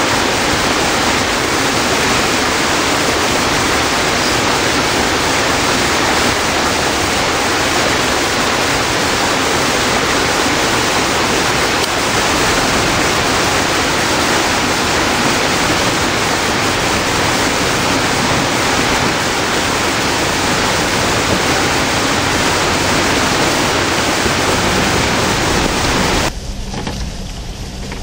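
Shallow rocky creek rushing over stones close to the microphone: a loud, steady rush of water. It cuts off suddenly near the end, giving way to a quieter low rumble.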